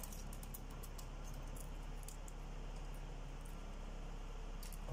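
Faint, scattered light metallic clicks from handling the valve springs and locks on a V8 cylinder head, mostly in the first half with one more near the end, over a steady low hum.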